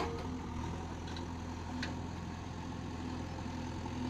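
JCB backhoe loader's diesel engine running steadily at a low, even pitch while the backhoe arm works the dig. A single faint click comes a little under two seconds in.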